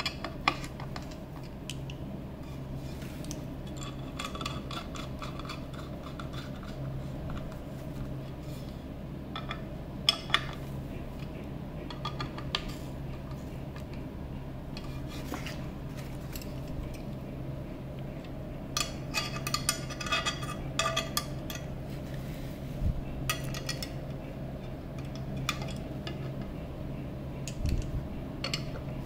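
Hand screwdriver driving screws into a metal chassis panel to fasten a power transformer: scattered metallic clicks and scraping, busiest about two-thirds of the way through, over a steady low hum.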